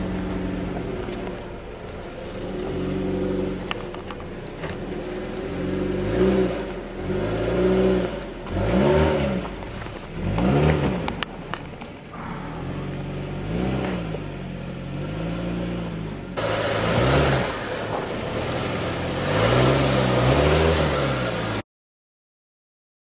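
Jeep Renegade's engine revving up and down in repeated throttle blips as it crawls over rock ledges, with tyres clattering and scraping on the stone. The sound cuts off abruptly near the end.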